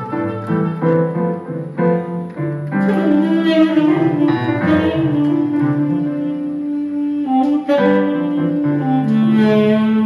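Saxophone and electronic keyboard playing an improvised jazz jam. Shorter notes open the passage; from about three seconds in the saxophone holds long notes over the keyboard.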